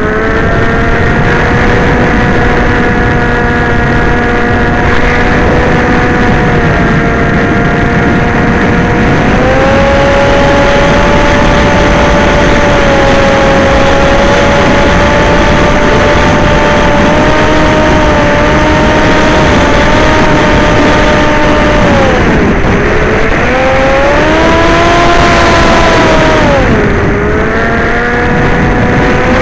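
Electric motor and propeller of an FPV model aircraft whining over a rush of air, the pitch shifting with throttle. It steps up about a third of the way in, drops and climbs again near the end, then dips once more.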